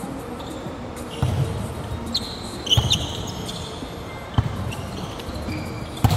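Volleyball being hit back and forth on an indoor court: four sharp slaps about a second and a half apart, echoing in the large hall, with a few short high squeaks between them.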